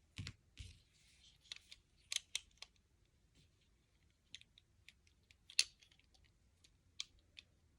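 Faint, irregular clicks and ticks of plastic Lego pieces being handled and pressed together, the loudest a little past halfway.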